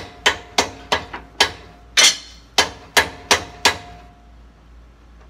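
About a dozen uneven hammer blows on a metal driver, tapping the hydraulic lift cylinder's gland and seals up the rod into the barrel. Some blows leave a short metallic ring. The tapping stops a little under four seconds in.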